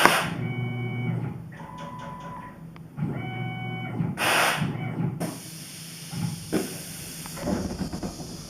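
Tormach PCNC 1100 CNC mill machining MIC6 aluminium plate: two stretches of a steady cutting tone of about a second each, broken by short loud bursts of hiss, then a steadier hiss from about halfway through.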